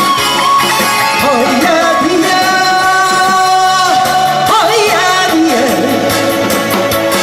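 A woman singing a Korean trot song into a microphone over an amplified backing track, holding long notes with vibrato.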